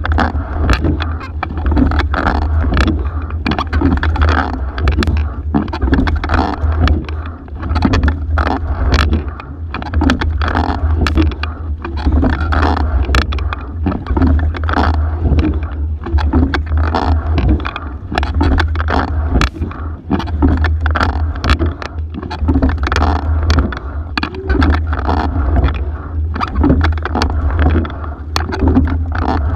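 Racing single scull under way, heard from a camera mounted on the boat: water rushing and splashing around the hull and oar blades, with frequent sharp knocks from the oars and rigging, over a steady low rumble.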